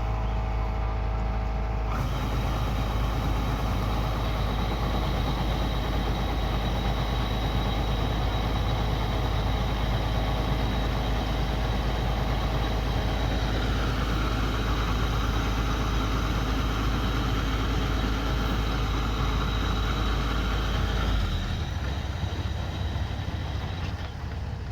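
Kubota DC105X combine harvester running steadily, its engine and threshing machinery working together. The sound grows fuller about two seconds in, a higher hiss joins for several seconds in the middle, and the deep rumble drops away near the end.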